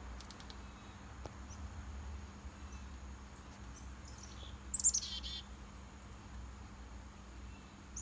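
A small songbird gives one short, high, rapid call of several notes, falling in pitch, about halfway through, with a few faint high chips near the start. A steady low outdoor rumble sits underneath.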